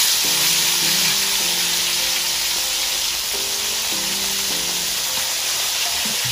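A whole tilapia frying in hot oil in a wok: a steady, dense sizzle that holds at an even level throughout.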